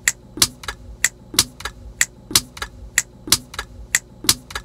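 Finger snapping in a steady rhythm, about three sharp snaps a second.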